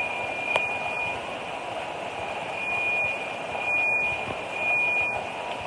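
An alarm sounding a single high steady tone in repeated pulses, over a constant background hiss, with one sharp click about half a second in.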